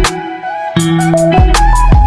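Background music with a steady beat and sustained melodic notes; the low beat drops out briefly in the first half.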